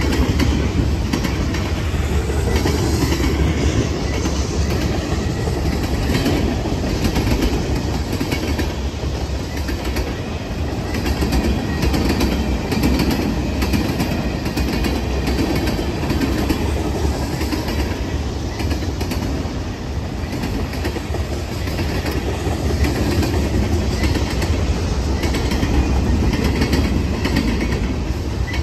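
Freight cars of a Norfolk Southern mixed freight train rolling steadily past, a continuous rumble with wheels clicking over the rail joints.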